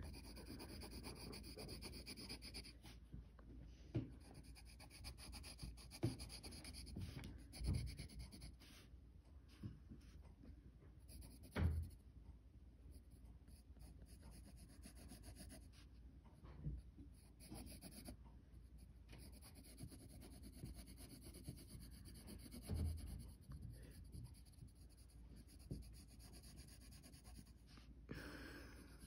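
Faint scratching and rubbing of a pencil on paper as a sketch is drawn, with a few soft knocks scattered through.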